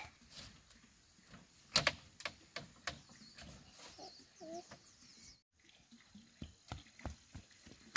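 Irregular knocks and clacks of bamboo poles being handled and set into a fence, the loudest a sharp knock about two seconds in, with a few bird chirps around the middle.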